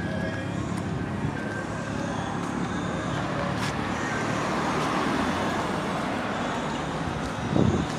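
Road traffic passing on a busy road. One vehicle grows louder and goes by about halfway through, and there is a brief low thump near the end.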